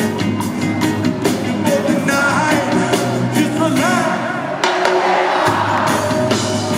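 A live reggae band playing a song with lead vocals over drums, bass and electric guitar. The bass drops out for about a second past the middle, then comes back in.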